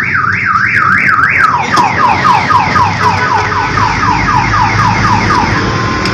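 Car alarm siren sounding in repeated up-and-down sweeps, about three a second. About two seconds in it switches to a faster warble of about four sweeps a second, which fades out near the end.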